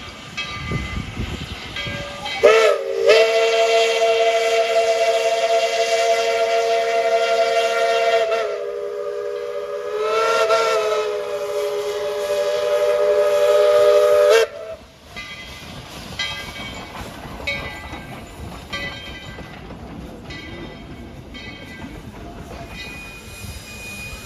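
Tweetsie Railroad #12's 5-inch Crosby three-chime steam whistle blowing one long chord of about twelve seconds. It breaks briefly just after it starts, eases down and swells back partway through, then shuts off sharply, leaving a lower steady hiss.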